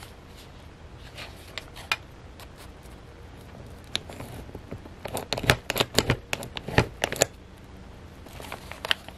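Hands handling stiff file-folder journal pages: paper and card rustling and shifting, with scattered clicks and a quick run of loud, sharp taps and clicks from about five to seven seconds in.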